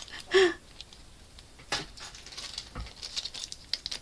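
Plastic bag rustled and moved about, with scattered small clicks and taps of handling. A brief pitched squeak about half a second in.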